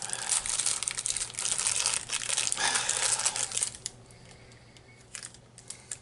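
Plastic toffee-bar wrapper crinkling and crackling as it is opened by hand, dense for the first few seconds, then stopping with a couple of short crackles near the end.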